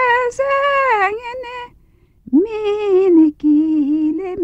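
A woman singing a Tatar folk song unaccompanied, holding long notes with a slow vibrato. The phrase ends a little over one and a half seconds in, and after a short pause she starts the next phrase.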